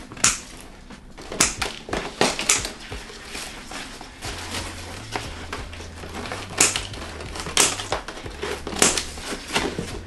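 Scissors cutting through roots and moss packed in a clear plastic moss pole to free the plant's straps: irregular crisp snips and crunches, with a few louder snaps.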